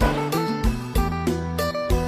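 Background music led by guitar, with a steady beat of about three hits a second.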